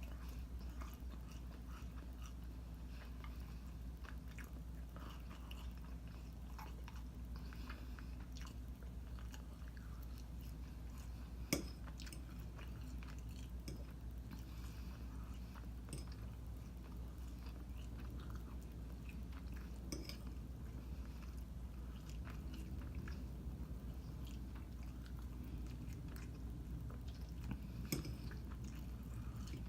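A person chewing and biting food close to the microphone: orange chicken and rice, with faint wet mouth noises and a few sharp clicks, the loudest about a third of the way in. A steady low hum runs underneath.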